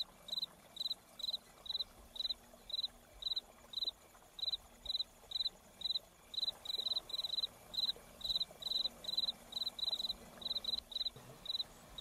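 An insect chirping in short, pulsed chirps at one steady high pitch, about two or three a second, with the odd double chirp.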